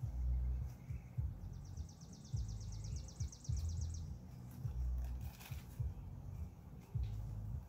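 Wind buffeting the microphone in uneven gusts of low rumble. From about one and a half seconds in, a bird gives a high, fast, even trill lasting about two and a half seconds.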